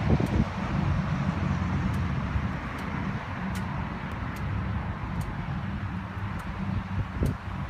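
Triumph Tiger 800 XC's three-cylinder engine idling steadily, a low even pulsing, with a brief louder rustle near the start and again near the end.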